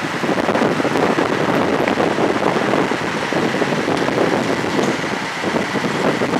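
Heavy construction machinery running steadily at a piling site, a dense continuous noise with a faint steady whine, with wind buffeting the microphone.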